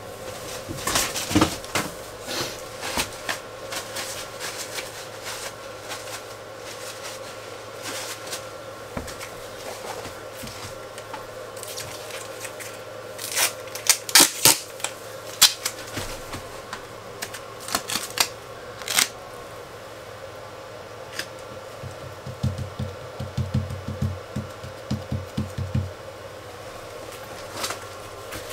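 Hand work noises: scattered clicks, knocks and rustles as materials are handled, with a burst of sharp, loud noises about halfway through and a run of low thumps near the end, over a steady faint hum.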